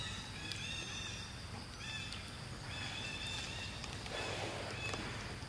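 Short, high animal calls repeating in small groups of two or three notes, over a steady low rumble, with a brief rustling noise about four seconds in.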